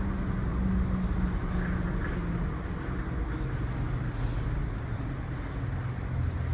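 A nearby vehicle engine running steadily, a low hum whose pitch shifts slightly partway through.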